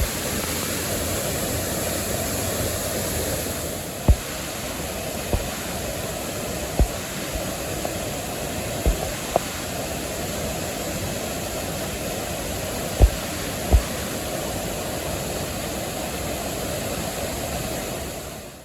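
Joren Falls waterfall rushing steadily, with several brief low thumps.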